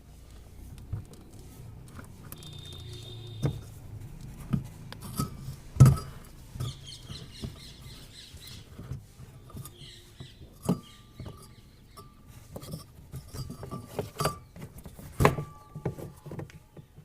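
Washing machine wash motor running with its belt removed, a quiet low hum with no grinding, amid scattered clicks and knocks of handling, the loudest about six seconds in. The motor running quietly on its own points to the gearbox as the source of the machine's noise.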